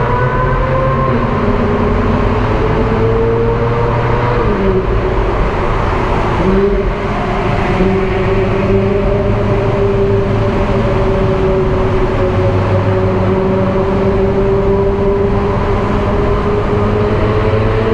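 Ferrari 458 Spider's V8 running steadily at highway speed, with road and wind noise under it. About four and a half seconds in the engine note drops, dips briefly near seven seconds, then picks up again at a lower pitch and climbs slowly.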